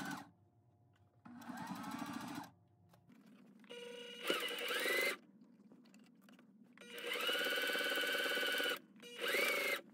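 Electric sewing machine stitching a folded fabric hem in four short runs, stopping in between. The motor whine rises in pitch as a run gets up to speed, and the longest run goes steadily for nearly two seconds.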